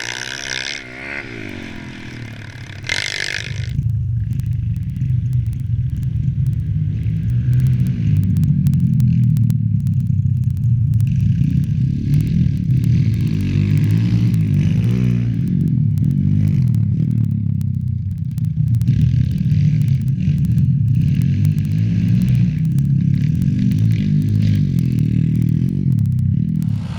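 Pit bike's small single-cylinder four-stroke engine running hard, its pitch rising and falling with the throttle, with frequent sharp clicks and rattling over it. The engine gets much louder about three seconds in and stays loud.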